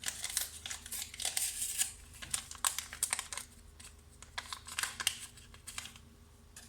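Paper baking-powder sachet crinkling as it is handled: a run of irregular rustles and light ticks that stop about six seconds in.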